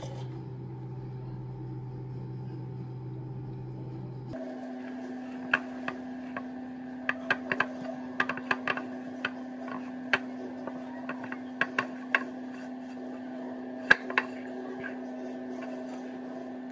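Dough being kneaded by hand in a ceramic bowl: irregular sharp knocks and clicks against the bowl, starting about a third of the way in, over a steady hum.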